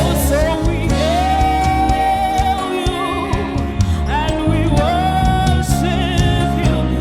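Live gospel worship music: a woman's lead voice holding long sung notes over a full band with keyboard, bass and drums.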